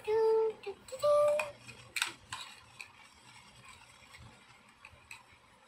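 A child hums two short notes, then small plastic toys click and knock as they are handled.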